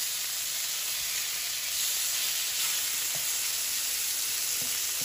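Fish fillets frying in a pan, a steady sizzle, with a couple of faint ticks about three and four and a half seconds in.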